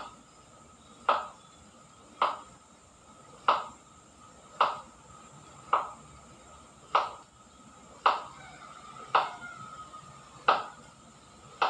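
Caged myna giving a short, sharp call over and over, about once a second.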